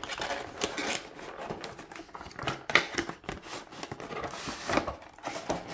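Cardboard box being opened by hand: the end flap is pulled open and the packaging slid out, with rustling and scraping of cardboard and plastic and a few sharp clicks, the loudest about three seconds in.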